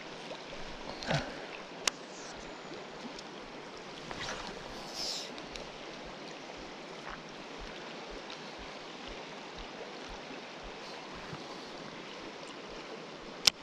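Steady rush of a high, fast-flowing winter river. A few short clicks cut through it, the sharpest one just before the end.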